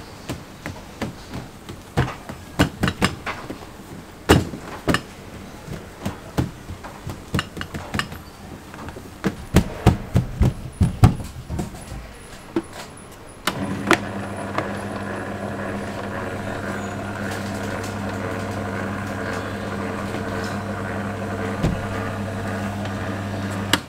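Irregular knocks and slaps as dough is handled on a steel worktable. About halfway through, an electric dough sheeter's motor starts and runs with a steady hum as the dough is rolled into a long sheet.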